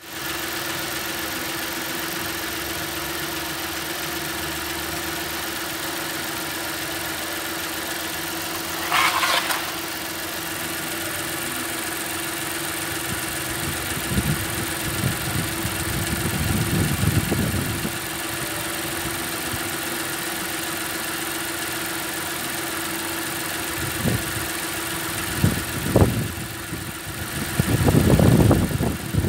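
2010 Mazda CX-9's 3.7-litre V6 idling steadily. There is a short hiss about nine seconds in, and a few low rumbles in the second half.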